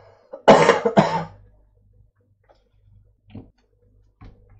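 A person coughs twice in quick succession, about half a second in.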